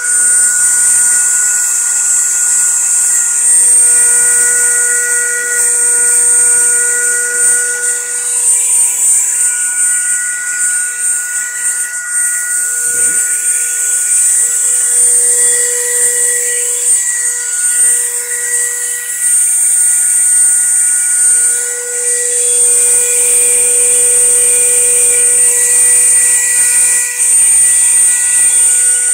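Dremel rotary tool running steadily with a high whine, grinding down a corgi puppy's toenails; its pitch shifts slightly now and then.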